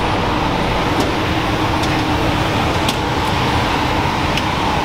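Steady machine hum with a low rumble and a faint droning tone, broken by a few faint ticks.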